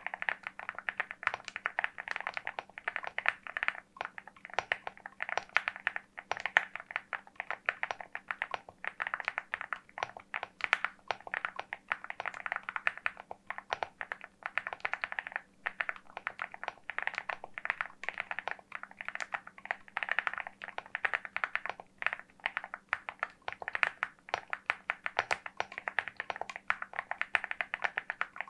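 Fast, continuous typing on a LEOBOG Hi75 aluminium mechanical keyboard: a dense run of keystroke clacks, broken by short pauses every few seconds.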